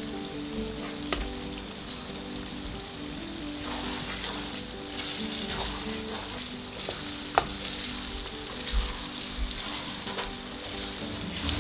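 Sliced onions sizzling in oil in an aluminium pot as a wooden spoon stirs in freshly added turmeric. There are a few sharp knocks, clearest about a second in and again about seven seconds in.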